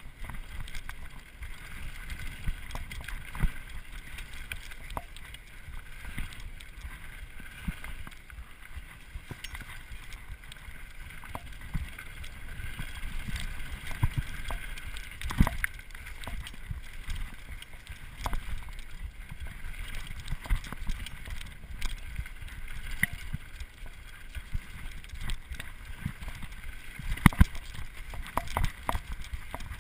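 Mountain bike riding down a dirt forest singletrack: a steady low rumble of tyres and wind on the microphone, with frequent clicks and rattles from the bike over bumps, and a few sharper knocks near the end.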